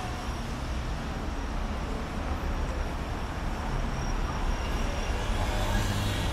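City street ambience: a steady low rumble of road traffic that grows a little louder near the end.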